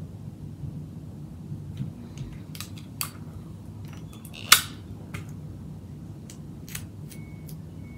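Scattered clicks and snips from scissors and craft materials being handled, with one sharp click about four and a half seconds in. A low steady hum runs underneath.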